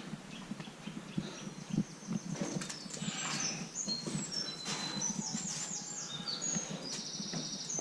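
Small birds singing: short high chirps and sliding notes from about three seconds in, with a fast trill near the end, over scattered rustling and knocks.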